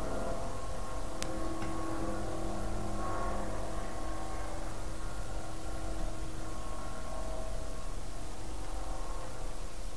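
A light propeller airplane's engine droning steadily in the background, its pitch shifting slightly as it flies. A single sharp click about a second in.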